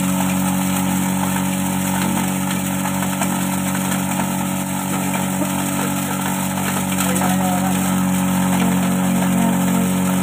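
Mini multipurpose chopper-grinder driven by a Shimizu electric motor, running steadily and grinding rice husks, a constant hum with a hiss of milling over it.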